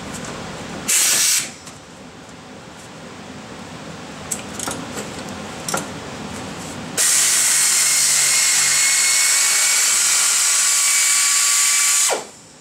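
Pneumatic air ratchet fitted with an Allen bit: a short burst about a second in, then about five seconds of steady running from about seven seconds in, a whine over the air hiss, as it backs out the brake caliper's Allen-head guide pins.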